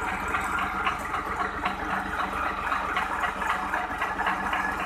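Ghazi 65 hp tractor's diesel engine running steadily under load, turning a sugarcane crusher through its PTO driveshaft, with the rattle and clicking of the crusher's gears and rollers over it.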